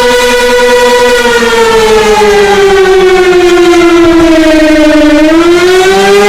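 Warning siren wailing loudly: it holds one pitch, slowly sinks from about a second and a half in, then starts climbing again near the end.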